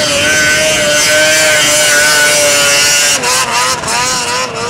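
Snowmobile engine running at a high, steady pitch at full throttle as the sled skims across open water. About three seconds in, the pitch drops and wavers, and the loudness dips a few times.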